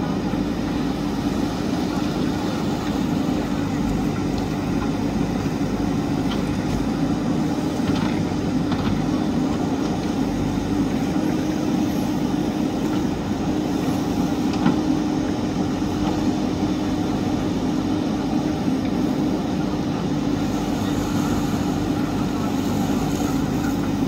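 Diesel engine of a JCB backhoe loader running steadily under working load as the backhoe digs, with an even, droning hum. A single knock a little past halfway.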